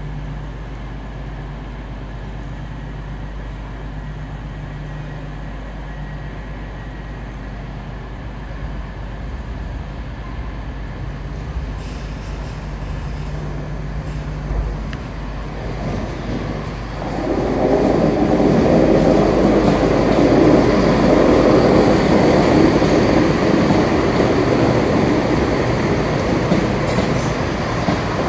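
Class 170 Turbostar diesel multiple unit coming into the platform. Over a steady low hum its sound slowly grows, then turns loud about 17 seconds in as the train draws alongside.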